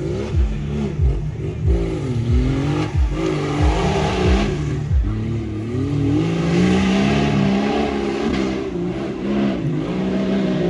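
Off-road 4x4's engine revving up and down repeatedly, its pitch rising and falling over and over as it works through the course.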